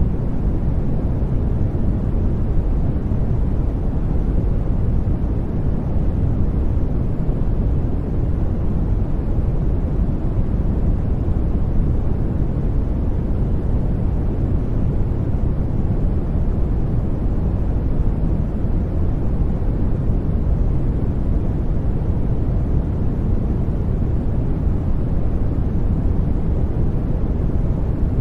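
Steady sleep-aid noise track, sold as white noise: an even, deep rushing hiss weighted toward the low end, with no change in level.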